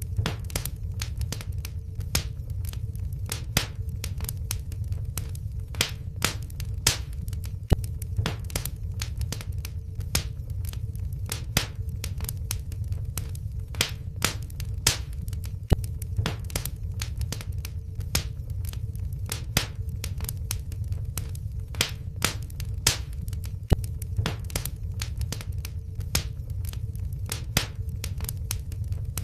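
Wood fire crackling in a fireplace: irregular sharp pops and snaps over a low steady rumble of the flames, with a faint steady hum underneath.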